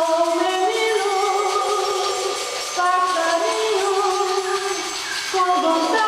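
A group of voices singing a slow melody in long held notes that step from pitch to pitch.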